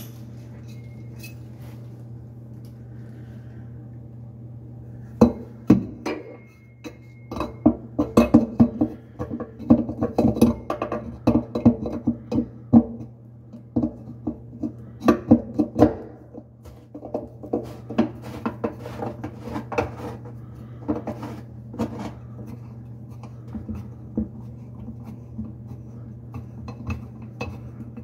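Metal clinking and knocking against the underside of a stainless steel sink as the faucet's mounting nut is worked loose on its threaded shank. The rapid clinks start a few seconds in, come thickest for about ten seconds, then thin out to scattered taps.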